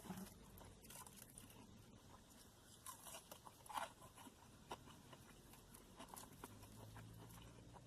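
Faint close-up chewing of crunchy fried batter bits, with a few sharper crunches around the middle.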